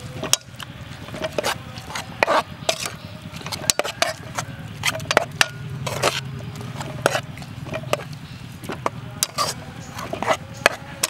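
Metal spoon stirring and scraping in an aluminium pot, mixing chopped green onions into a moist white mixture: irregular scrapes and clinks against the pot, over a steady low hum.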